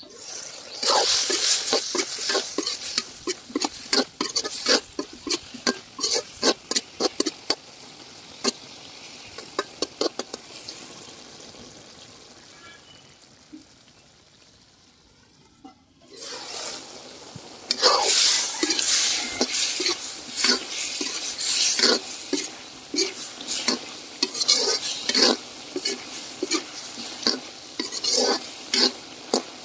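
A metal spatula scrapes and clinks against a wide metal karahi while chopped vegetables sizzle in oil. The stirring dies down for a few seconds partway through, then resumes with louder sizzling.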